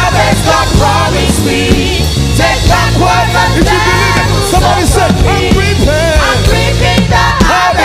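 Loud gospel worship band music with a steady heavy bass and singing that slides and bends in pitch.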